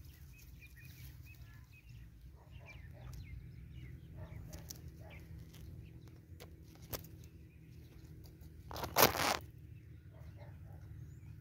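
Close rustling and handling noise among grass over a steady low rumble, with scattered small clicks and one loud, brief rustle about nine seconds in.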